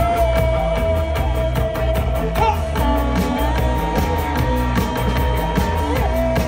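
Live rock band playing loudly: a steady drum and bass beat with cymbals, under a long held note that slides briefly up and back down twice before settling.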